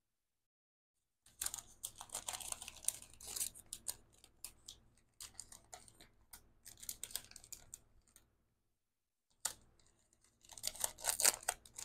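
Plastic packaging bag crinkling and rustling in irregular bursts as a pack of paper sheets is handled, starting about a second in.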